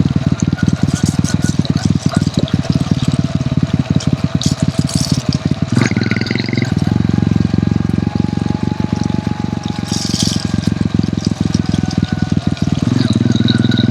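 Hero Honda CD100's single-cylinder four-stroke engine running while under way, its note shifting about six seconds in from a fast pulsing beat to a steadier drone, and changing again near the end.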